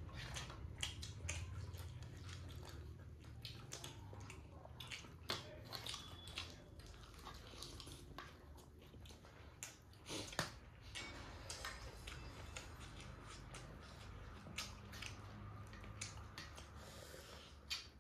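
A person chewing and biting chicken close to the microphone: irregular small smacks and clicks of eating, over a faint low hum.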